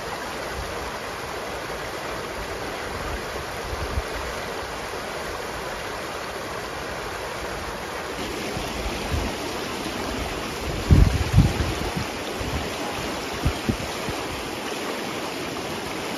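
Shallow river rushing steadily over rocks and small rapids, with a few short low thumps about two-thirds of the way through.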